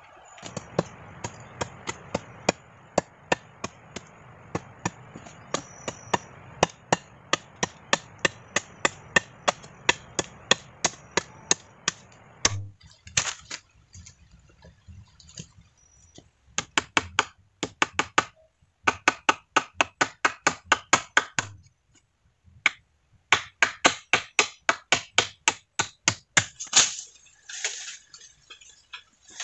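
Rapid, evenly spaced strikes of a hand tool on wood, about two to three a second, in runs broken by short pauses. A steady rushing hiss lies under the first dozen seconds and cuts off abruptly.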